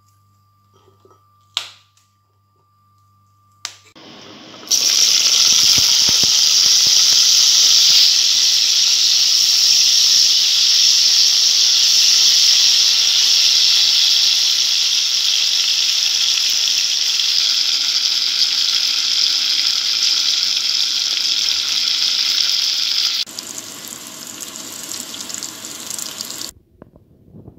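Whole green chilies sizzling in hot oil in a pan: a loud, steady hiss that starts suddenly about five seconds in, drops to a quieter sizzle near the end, then cuts off. A single sharp click comes shortly before the sizzling starts.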